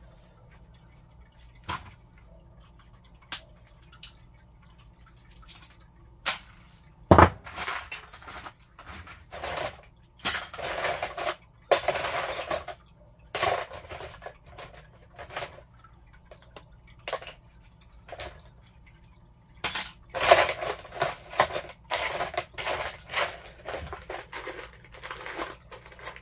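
Metal parts and tools clinking and clattering as they are handled. There are scattered single clicks, a sharp knock about seven seconds in, then longer spells of rattling about ten and twenty seconds in.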